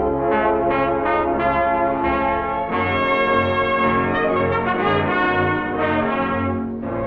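Orchestral film-score music led by brass. A few short, separate notes open it, then sustained chords take over a couple of seconds in over a bass that pulses on a steady beat.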